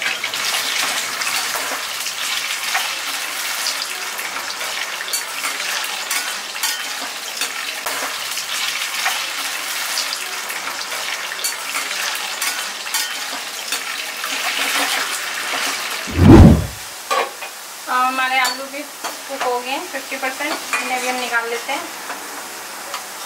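Potato wedges sizzling in hot oil in a kadhai, with a slotted metal spatula scraping and clinking against the pan as it stirs them. About sixteen seconds in, a single loud, low thump stands out above the frying.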